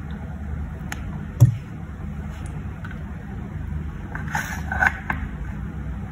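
Steady low hum with handling noise: a light click just under a second in, a sharper knock about one and a half seconds in, and a brief rustling scrape with clicks about four seconds in.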